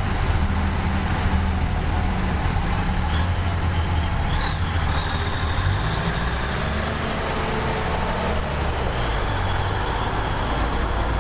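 M817 5-ton 6x6 military dump truck driving slowly past, its Cummins six-cylinder diesel running steadily with a deep drone that eases a little in the second half.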